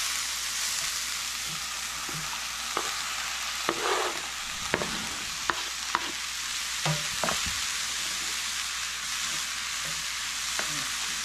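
Swiss chard sizzling in hot oil in a frying pan, with a utensil stirring it and knocking against the pan now and then in sharp clicks.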